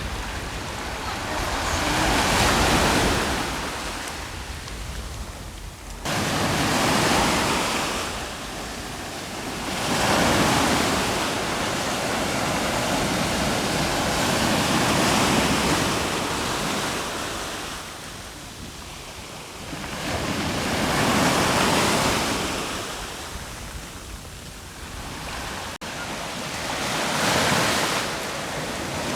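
Sea waves breaking on the shore, each one a rush that swells and fades every few seconds, with wind rumbling on the microphone.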